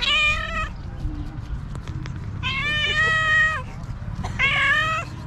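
Ginger stray cat meowing three times, each meow about a second long, the middle one the longest.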